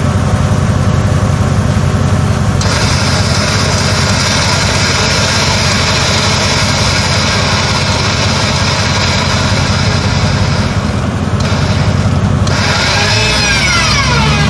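Land Rover Discovery II stuck in deep mud, running steadily with a strong low hum. A harsher hiss joins about two and a half seconds in and drops out briefly near the end, when a whine wavers up and down in pitch.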